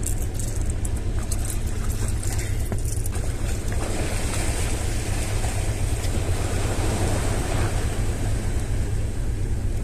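Wind rumbling on the microphone over sea waves washing at the shore; the wash grows louder about four seconds in. A few light clicks come in the first three seconds.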